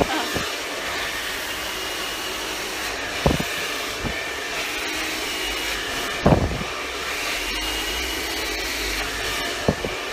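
Handheld hair dryer blowing steadily, with three brief thumps about three seconds apart.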